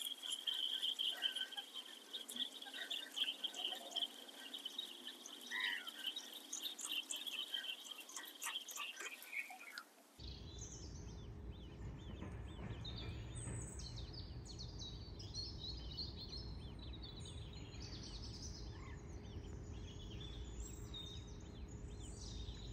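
Birds chirping around a lake. For about the first ten seconds there is a steady high chirring with scattered clicks. After a sudden change it is replaced by a low steady rumble with bird chirps above it.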